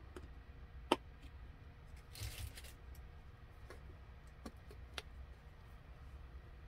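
Faint handling sounds: a few scattered light clicks and a short soft rustle about two seconds in.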